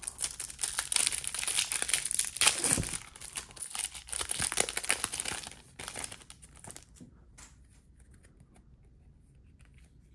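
Foil wrapper of a trading-card pack being torn open and crinkled. The crackling is dense for the first six to seven seconds, then gives way to faint scattered ticks.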